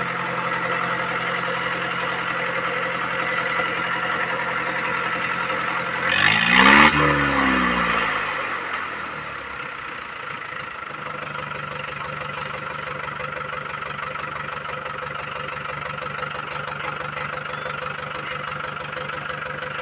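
Mahindra 585 tractor's diesel engine running, with a brief rev up and back down about six seconds in, then settling to a quieter steady idle. Its fuel system is being primed by pump to cure a slight misfire.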